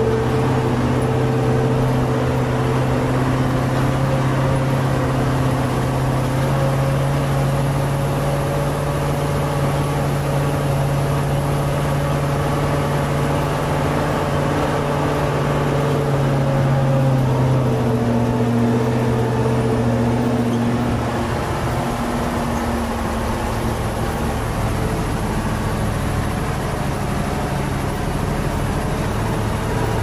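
Nissan 6x6 logging truck's V8 diesel engine running as the truck drives, heard from inside the open cab with road and rattle noise. Its steady drone drops slightly in pitch a bit past halfway, then eases off a few seconds later.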